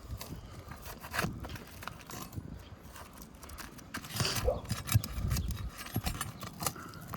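Irregular knocks, taps and scrapes of hand roofing tools (a pry bar, roofing snake and hammer) working on asphalt shingles, prying nails loose to free a test shingle.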